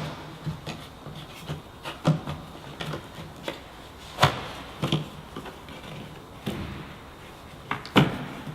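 Plastic cowl cover being manoeuvred back into place under the wiper arm, giving irregular knocks and clacks of hard plastic against the car body, a few louder ones about two, four and eight seconds in.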